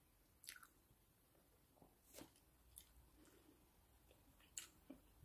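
Faint close-up mouth sounds of a person chewing soft food, sardines with rice: a few soft, wet clicks and smacks over a quiet room.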